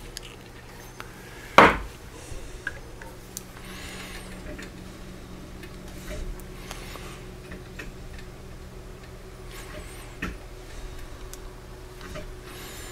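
Hand tap being turned with a T-handle tap wrench into a drilled hole in aluminum plate, faint scraping as it starts to cut threads. A single sharp knock about a second and a half in.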